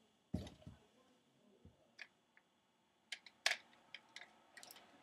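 Scattered light clicks and a soft thump about half a second in, from handling a broken airsoft gun.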